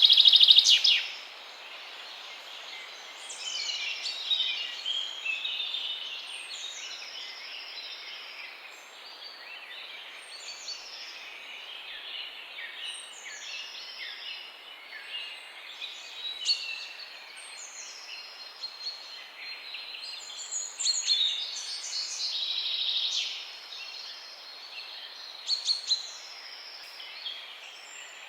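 Several songbirds chirping and calling over a soft steady background hiss. One bird repeats a high whistle that slides downward, about every second and a half. A louder burst of chirping comes at the very start and again around two-thirds of the way through.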